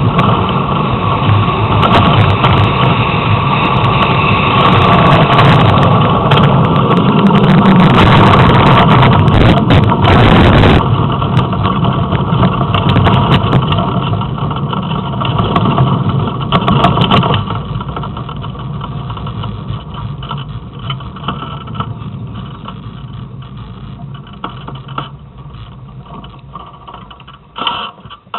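A gravity soapbox cart heard from onboard, rolling fast down an asphalt road: a loud, steady rumble and rattle of wheels on tarmac. After about seventeen seconds it fades gradually as the cart slows to a stop, with a few sharp knocks near the end.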